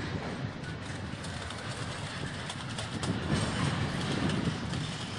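Double-stack container freight train rolling past at steady speed: a continuous low rumble of steel wheels on rail, with faint clicking throughout.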